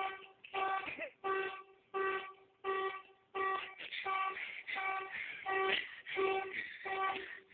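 Car alarm sounding through the car's horn: short, even honks repeating about three every two seconds.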